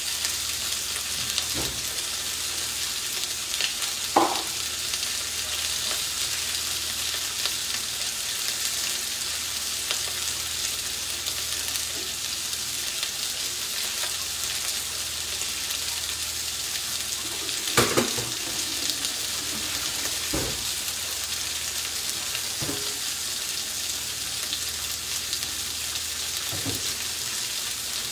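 Whole fresh sardines sizzling and crackling in a hot, lightly oiled cast iron pan on a high flame; the fish are still a bit wet, so the oil spits. A steady sizzle, with a few sharp knocks, the loudest about four seconds in and about eighteen seconds in.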